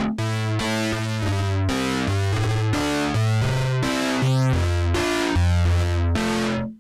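UDO Audio DMNO hybrid polyphonic synthesizer playing a bass-heavy sequence of short notes, about two a second. Each note is bright at the start and quickly dulls as the filter closes. The pattern cuts off abruptly at the very end.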